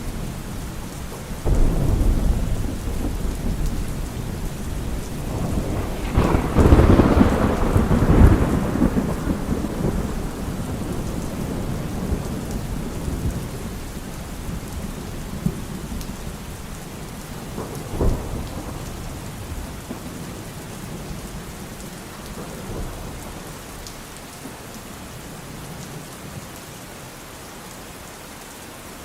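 Thunderstorm: steady rain with rolling thunder. The rumble swells about a second and a half in, a louder crack and long rumble comes around seven seconds in, and a short sharp crack comes near eighteen seconds, after which the rumbling dies away under the rain.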